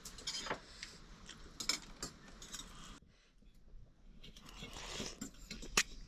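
Scattered light clicks and scrapes of utensils on dishes as instant noodles are eaten, with a short quiet pause about halfway through and a sharper click near the end.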